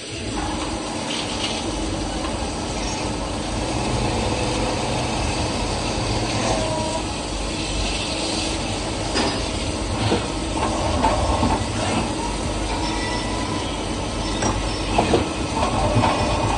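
CNC machine running in a machine shop: a steady mechanical hum and hiss with scattered clicks and a few brief squeals, busier near the end.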